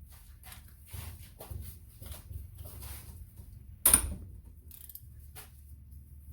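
Tools and engine parts being handled during an engine teardown: a run of small clicks and clinks, with one loud, sharp metallic clank that rings briefly about four seconds in.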